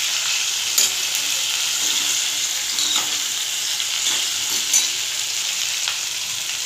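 Cut okra sizzling as it stir-fries in hot oil in a pan, a steady hiss. A perforated metal skimmer spoon turns it, knocking lightly against the pan a few times.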